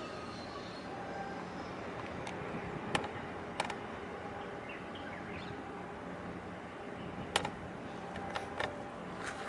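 Steady outdoor background noise with a faint low hum, broken by a few short sharp clicks and faint chirps.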